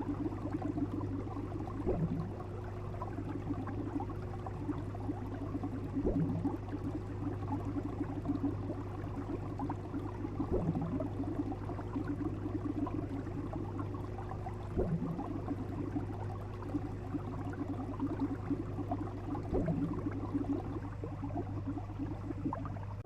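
Bubbling, gurgling water over a steady low hum, with a short pop about every four and a half seconds.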